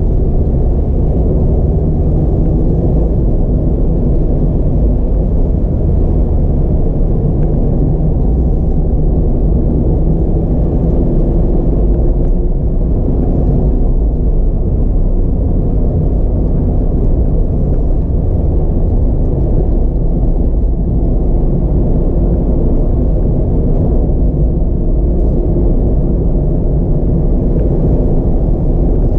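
Mazda MX-5 RF driving on a winding road: a steady low rumble of road and tyre noise, with the four-cylinder engine's hum rising and falling slightly in pitch, heard from inside the car.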